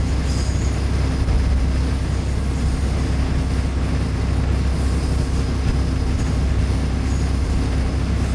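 Suburban diesel railcar running along the track, heard from inside the passenger car: a steady engine and wheel rumble with a low hum.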